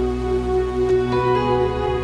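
Background music: a soft, sustained new-age style bed of held tones, no speech.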